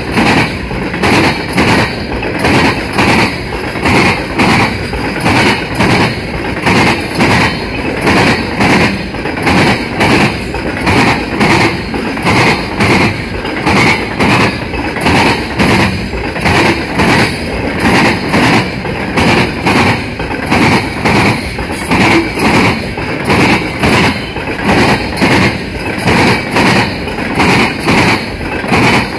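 Freight train of refrigerated boxcars rolling past close by: steel wheels clacking over the rail joints in a steady, even rhythm over a constant rolling rumble.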